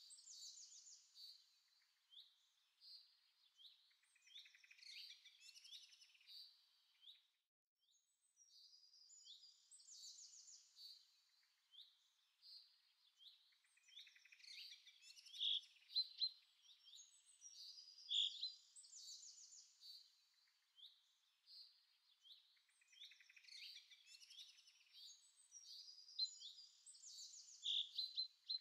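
Faint songbirds chirping and singing, a continuous stream of short, high calls and trills, with a brief pause about seven seconds in.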